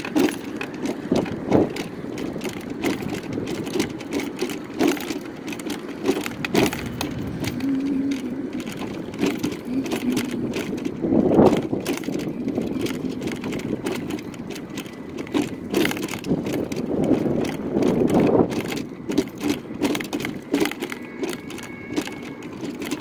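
Mobility scooter rolling along a sidewalk, its front basket and body rattling and clicking over the pavement, with road traffic going by. The traffic swells twice, about halfway through and again a few seconds later.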